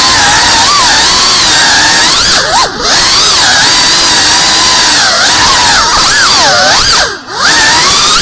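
FPV quadcopter's motors and propellers whining, heard from on board, the pitch sliding up and down with the throttle. Twice, briefly about two and a half seconds in and again near the end, the whine drops away and then swoops back up.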